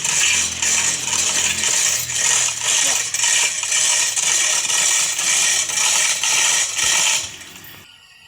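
Well-drilling machine working: a loud metallic grinding and clinking that pulses about twice a second, then dies away about seven seconds in.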